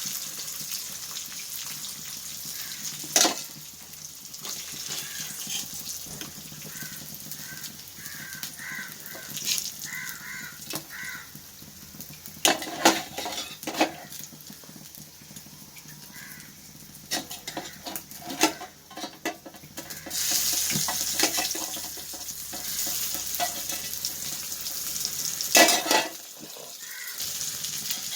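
Indian mackerel pieces shallow-frying in coconut oil, sizzling steadily, with a spatula knocking and scraping against the pan now and then as the pieces are turned. The sizzle grows louder about twenty seconds in.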